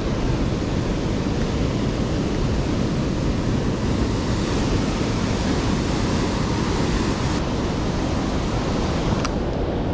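Heavy surf breaking and washing in over a boulder shoreline: a steady, loud rush of white water, with wind on the microphone. A single sharp click near the end.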